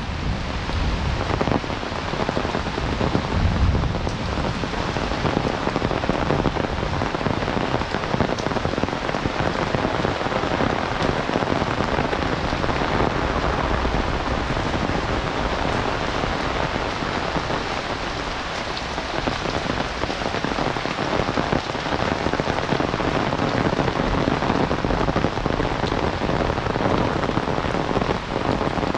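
Heavy rain falling steadily: a dense, even hiss of drops.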